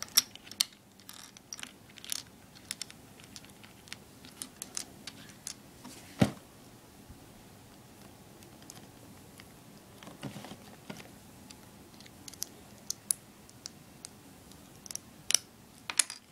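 Small plastic LEGO bricks and plates clicking and tapping on a wooden tabletop as they are picked up, set down and pressed together: scattered sharp clicks, with one louder knock about six seconds in.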